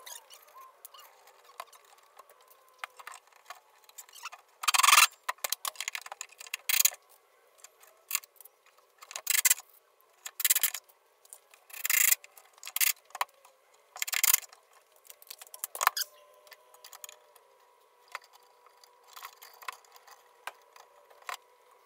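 Wood and hardware being handled on a cabinet build: short bursts of scraping, rattling and knocking, each about half a second, loudest about five seconds in. A faint steady hum sits underneath.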